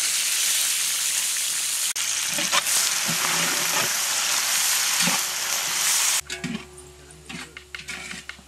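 Sliced onions sizzling loudly as they hit the hot fat and spices in a large biryani pot, with a ladle knocking and scraping as they are stirred. About six seconds in the sizzle stops suddenly, leaving quieter clicks and a faint steady tone.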